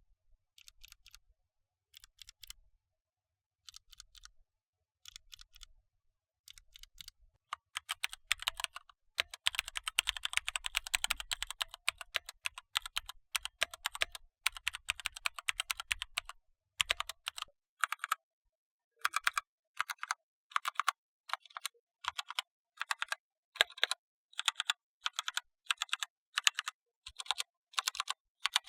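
Keystrokes on mechanical keyboard switches. For the first several seconds they are single presses spaced about a second apart, the close of an ASUS ROG NX Red linear-switch test. From about eight seconds in comes fast, continuous typing on Gateron Brown tactile switches, easing into separate keystrokes in the second half.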